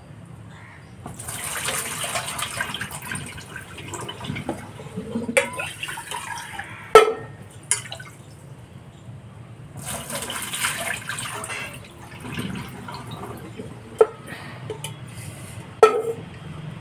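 Rinse water poured off rice from one stainless steel pot into another, in two pours. Between and after the pours come sharp clinks of the steel pots knocking, the loudest about seven seconds in and two more near the end.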